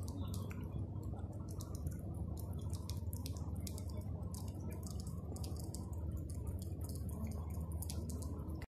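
Light rain: drops ticking irregularly and rapidly, over a low steady rumble.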